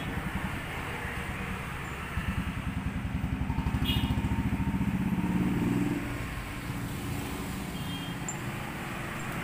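A motor vehicle engine running with a rapid, even pulsing beat, louder from about two to six seconds in. A few short, faint clinks ring out over it.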